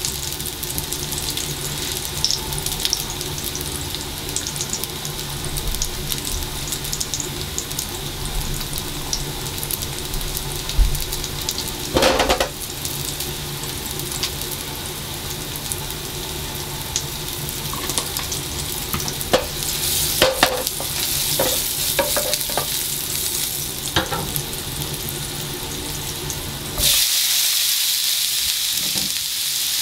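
Sliced garlic sizzling in oil in a nonstick frying pan, with a few knocks and clicks. Near the end the sizzle suddenly turns louder and hissier as vegetables are stir-fried in the pan.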